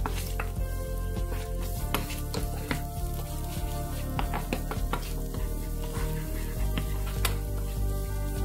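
Chopped garlic sizzling in hot oil in a nonstick pan, stirred with a spatula that scrapes and taps against the pan again and again.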